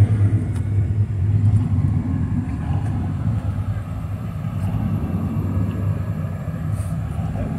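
An engine idling with a steady low hum and outdoor crowd noise behind it.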